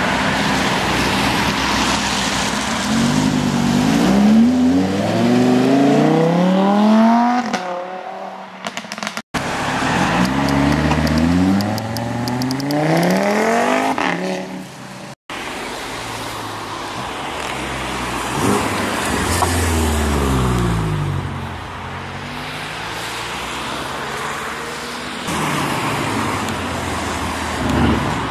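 Performance car engines accelerating hard away, the revs climbing in repeated rising sweeps with gear changes between them; the first is a Lamborghini Huracán's V10. The sound cuts out briefly twice where clips are joined.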